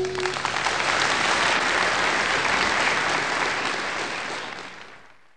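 Audience clapping, a dense patter of many hands, starting as a held music note cuts off and fading out near the end.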